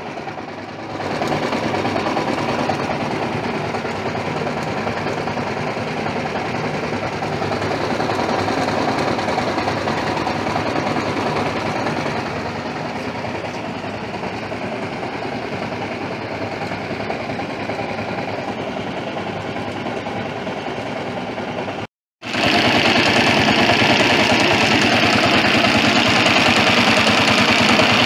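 A 200cc engine running steadily at idle. About 22 s in it breaks off for a moment, then runs on louder and with more clatter.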